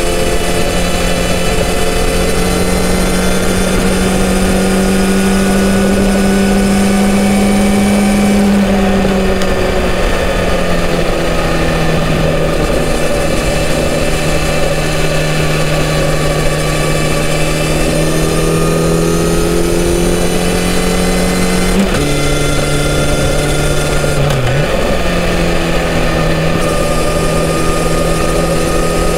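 Kawasaki Z900RS inline-four engine through its stock exhaust, cruising at steady revs at highway speed, with a steady rush of wind noise. The engine note creeps up in pitch, eases down about a third of the way in, and drops suddenly about three-quarters of the way through.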